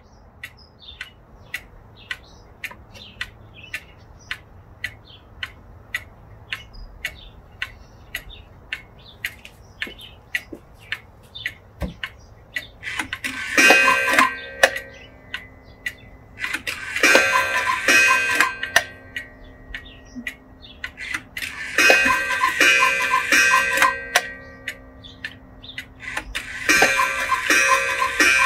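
Antique carved quail cuckoo clock ticking steadily, about two to three ticks a second. About halfway through, its bird-call mechanism starts and sounds four long, breathy, pitched rounds of calls with short gaps between them, as the clock calls the hour.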